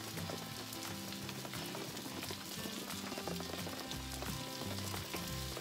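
Offal (horumon) with green onion frying in a skillet on a gas camp stove, a steady sizzle, with soft background music underneath.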